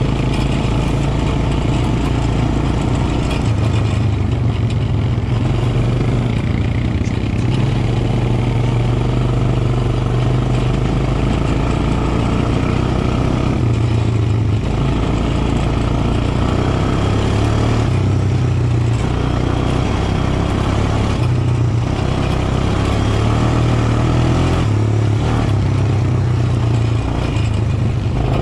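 Quad bike engine running under way while riding over sand, its low hum shifting up and down in pitch every few seconds, over a steady rushing noise.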